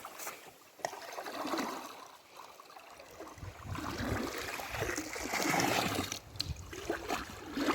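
Spring water trickling and running out of the ground as a small stream, growing louder about halfway through.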